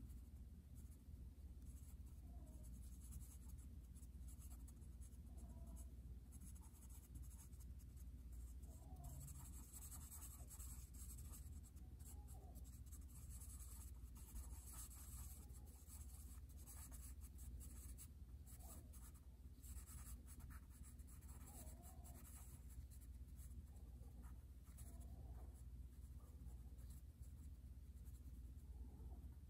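Charcoal pencil scratching on paper in quick, irregular scribbling strokes, faint and continuous, over a low steady hum.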